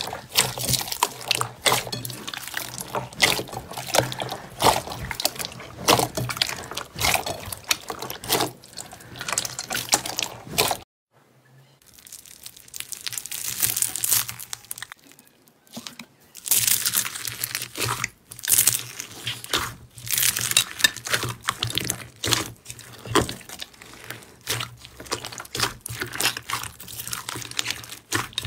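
Hands squeezing and kneading glossy slime mixed with foam beads: wet squelching with rapid, irregular crackling pops and clicks. The sound drops out briefly about a third of the way through, then comes back quieter before growing busy again.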